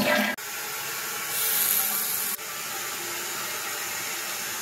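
Toilet flushing and its tank refilling: a steady rush of water. A brighter, louder hiss stops abruptly about two and a half seconds in.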